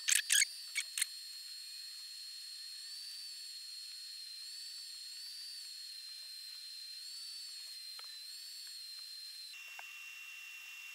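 A quick run of computer keyboard clicks, Ctrl+Z undo presses, in the first second, then a faint steady high-pitched electronic whine over a light hiss that drops to a lower pitch near the end.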